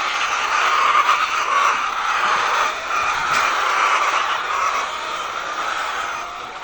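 Steady din of many hens clucking together in a poultry house.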